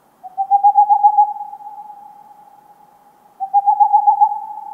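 Owl hooting twice, about three seconds apart; each call is a wavering hoot that trails off slowly.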